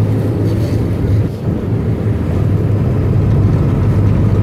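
Sportfishing boat's engines running with a steady low drone over a rush of water along the hull.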